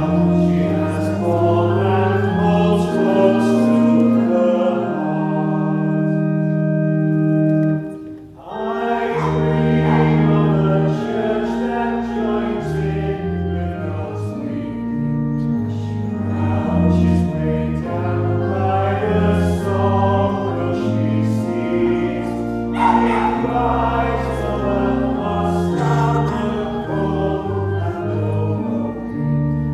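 Congregation singing a hymn together over sustained organ chords. Near eight seconds the voices stop on a held chord and the sound dips briefly, then singing starts again on the next verse.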